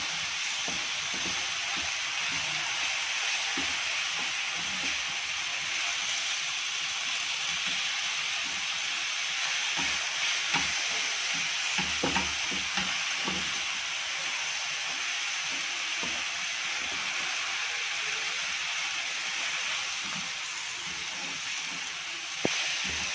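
Chicken mince with onions and tomatoes sizzling steadily in a non-stick frying pan as a silicone spatula stirs it, with a few soft knocks and scrapes of the spatula on the pan about halfway through.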